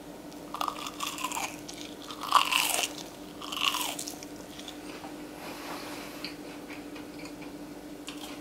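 Crunching bites into a fried eggplant chip coated in breadcrumbs and cornmeal, then chewing. A run of sharp crunches comes in the first four seconds, loudest about two and a half seconds in, followed by quieter chewing.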